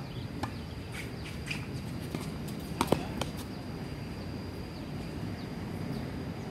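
Outdoor tennis-court ambience: a handful of short sharp knocks of tennis balls striking court or racket, the loudest about three seconds in, over birds chirping.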